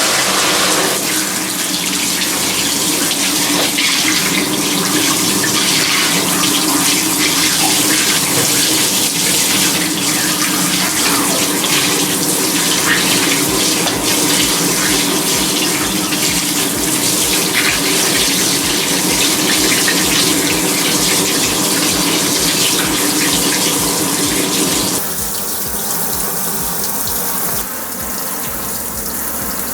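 Kitchen tap running into a sink as flour-coated squid is rinsed under the stream. The water runs steadily, then gets quieter about 25 seconds in and drops a little more shortly after.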